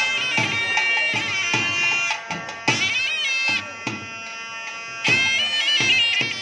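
Temple procession music: a reed wind instrument plays a winding, ornamented melody over steady drum beats, about two to three a second. The music drops back in the middle and comes back louder about five seconds in.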